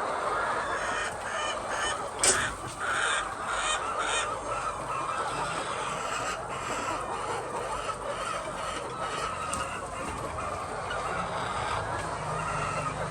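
A flock of laying hens calling and clucking together in a continuous din, with a few louder squawks about two to four seconds in.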